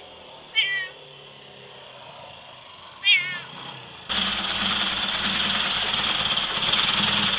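A cat meowing twice, two short calls about two and a half seconds apart. About four seconds in the sound cuts abruptly to a louder, steady hum and hiss.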